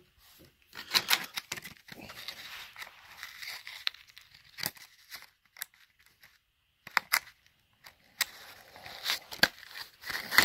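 Clear plastic clamshell tray of RAM sticks being pried open and handled, crackling and clicking in short irregular bursts, with a quieter pause around the middle.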